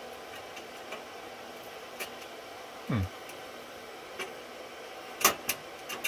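Steady whir of running rack-server cooling fans. A few small clicks and taps come from handling metal rack-rail hardware, the sharpest a quick cluster of clicks about five seconds in, and a brief low falling sound comes near the middle.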